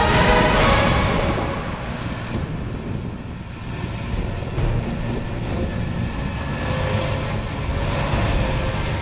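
Holmer Terra Variant 600 self-propelled slurry applicator working in the field: a steady low rumble of its diesel engine, mixed with wind on the microphone. Music fades out about a second in.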